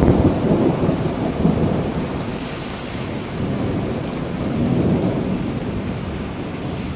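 Thunderstorm: deep rolling thunder rumbling continuously, swelling at the start and again about five seconds in, over a steady hiss of rain.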